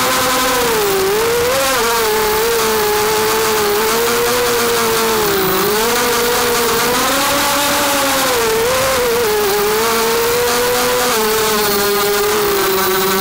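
250-size FPV racing quadcopter's brushless motors and propellers whining, heard from its onboard camera. The pitch rises and dips over and over with the throttle, above a steady rushing hiss.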